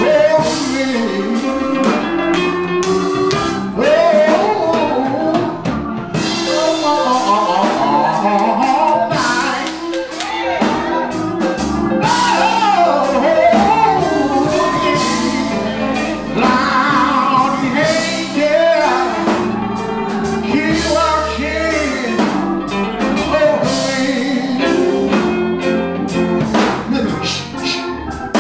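A man singing a gospel song through a handheld microphone, with long, bending held notes, backed by a drum kit keeping a steady beat.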